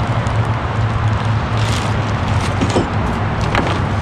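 Steady, loud traffic noise from a nearby freeway, with a few brief clicks and rustles in the second half.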